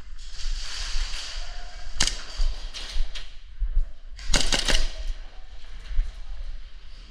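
Airsoft guns firing indoors: a single sharp shot about two seconds in, then a quick burst of several shots a little past four seconds.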